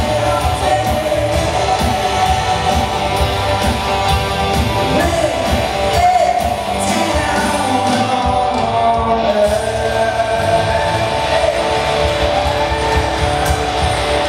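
Live band playing a rock-style song: drum kit beating steadily under electric and acoustic guitars and bass, with a voice singing over it.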